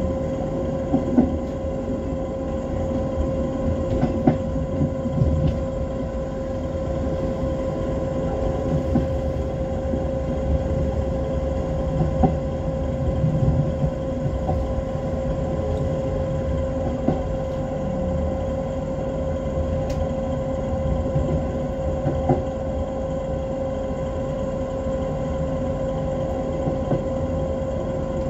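Train running steadily along the track, heard from the front cab: a continuous rumble with a steady, unchanging whine over it, and scattered short knocks and clicks as the wheels run over rail joints and points.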